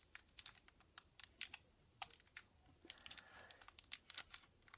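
Thin plastic blind bag crinkling and tearing in a child's hands as it is opened: a faint, irregular run of small crackles and clicks.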